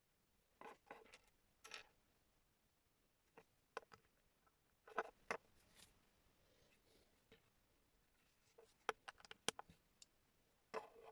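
Small plastic Lego pieces clicking and rattling as they are handled and pressed together, in short scattered clusters of sharp clicks.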